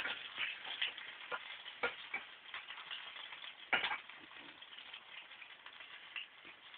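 An egg omelette with cheese and chorizo frying in plenty of oil in a pan: a steady sizzle with scattered sharp pops and crackles.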